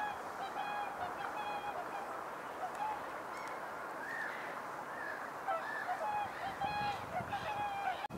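A flock of whooper swans calling: many short, overlapping honking calls that go on without a break, with several higher, arching calls in the middle.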